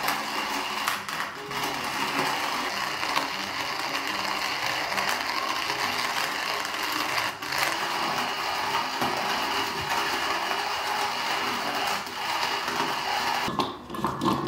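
Hand-cranked coffee mill grinding coffee beans: a continuous grinding as the handle is turned round, with a short break near the end.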